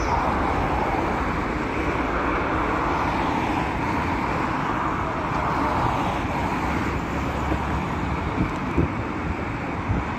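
Jet engines of an American Airlines twin-engine widebody airliner running at takeoff power during its runway roll, a loud steady rushing noise. A few faint knocks near the end.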